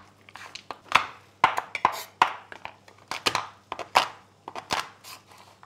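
Chef's knife chopping bars of dark chocolate on a wooden cutting board: a run of sharp, irregular chops, about two or three a second.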